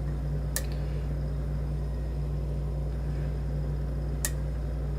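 Two small, sharp clicks about four seconds apart, from a lock pick working the pins of a challenge lock while it is being single-pin picked, over a steady low background hum.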